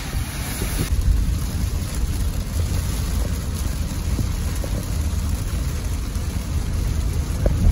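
Rain and road noise inside a Toyota Prius driving through a downpour on wet, flooded streets: a steady low rumble under a hiss, which drops away sharply about a second in.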